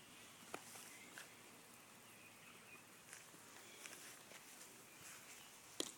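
Near silence with a few faint rustles and ticks of a toddler stepping through loose straw on grass, the sharpest one near the end.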